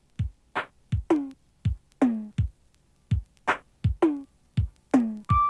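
Drum-machine intro to a music track: deep kick drums alternating with electronic tom hits that drop in pitch. Sustained keyboard notes come in just before the end.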